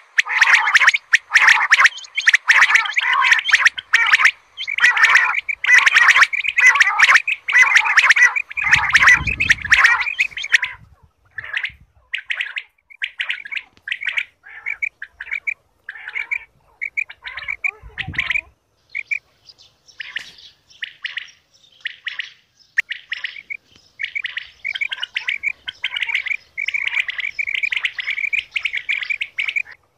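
Common quail (batair) calling in rapid chirping runs. The calls are dense and continuous for the first ten seconds, then come as shorter scattered calls, and thicken again near the end. Two brief low thumps come about nine and eighteen seconds in.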